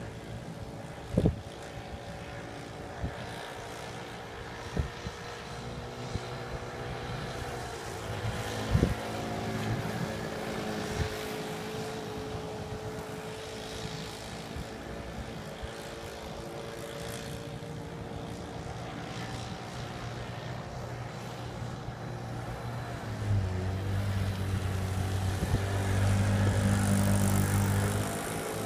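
Four-stroke Troy-Bilt weed eater engine driving an RC Dumas Scarab 38 model boat at speed: a steady buzzing drone whose pitch wavers as the boat runs and turns, growing louder about five seconds before the end as the boat comes closer. A few brief sharp thumps in the first ten seconds.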